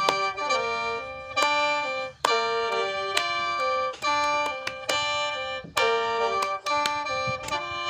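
Khaen, the bamboo free-reed mouth organ, played as a melody over held drone notes, in short phrases broken by brief pauses.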